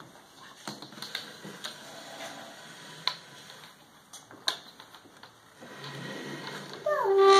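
A few scattered, light taps and knocks, about five of them, with a child's voice rising in near the end.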